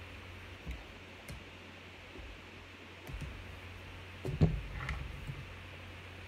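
Plastic tube segments of a sectional hula hoop clicking and knocking as they are pushed together, a few light clicks followed by a louder cluster of knocks about four and a half seconds in.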